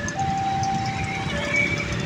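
Railway level-crossing warning alarm sounding its repeating two-tone electronic signal, a higher tone held about a second, then a lower one, warning that the crossing is closed for a train. Under it, the steady rumble of a passing passenger train.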